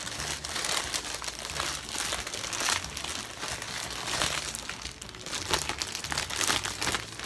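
Crinkling and rustling of a deflated balloon and its packaging being unfolded and handled, in a run of irregular crackles.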